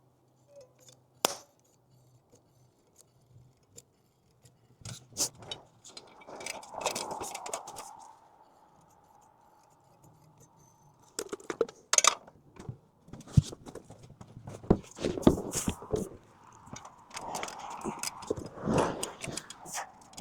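Scattered clicks, clinks and knocks, one sharp one about a second in, with stretches of scraping or rustling in between, like tools and building materials being handled.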